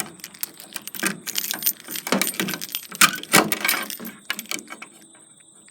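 Small metal objects jangling and clicking as they are handled: an irregular run of rattles and knocks that thins out near the end.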